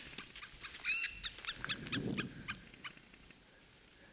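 A short, high-pitched animal call with a curving pitch about a second in, followed by a run of quick, sharp chirps.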